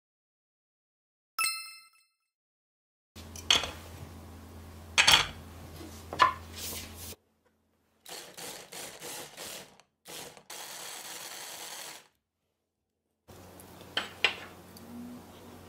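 Kitchen food-prep sounds in short edited clips separated by silent gaps: clinks and knocks of utensils and dishes, a ringing clink, and a run of short scraping noises followed by a steady rustling noise.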